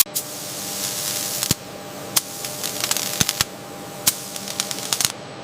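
CNC laser cutting metal sheet: a steady hiss with a faint hum, broken by irregular sharp clicks and crackles that come in quick clusters around the middle and again near the end.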